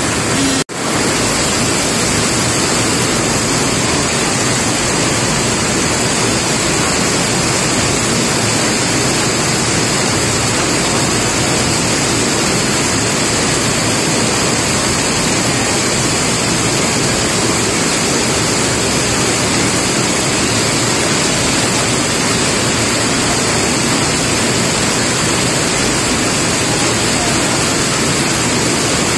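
Rain falling steadily, a dense even hiss. It drops out for an instant just under a second in, then carries on unchanged.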